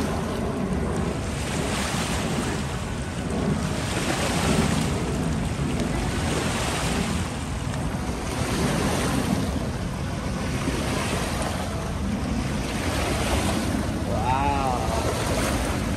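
Small waves washing against the river shore, swelling and falling every two seconds or so, with wind rumbling on the microphone. A short pitched call sounds once near the end.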